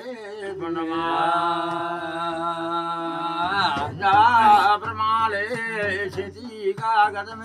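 A man's voice chanting a Kumaoni jagar devotional song: a long held note about a second in, then wavering, ornamented phrases.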